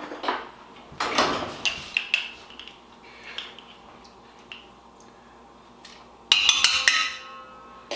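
Metal spoon scraping and clinking in a glass jar of sauerkraut as a spoonful is scooped out, with a quick run of louder, ringing clinks near the end.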